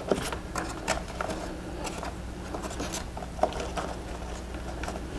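Hands handling wiring: scattered light clicks, rustles and scrapes as wire leads and plastic connectors are pushed down into the wiring channel of a model plane's foam fuselage, over a steady low hum.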